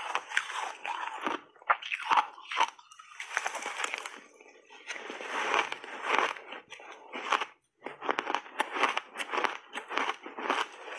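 Close-miked crunching and chewing of mouthfuls of shaved ice coated in matcha powder: crisp, crackling crunches in quick clusters, with short lulls between bites.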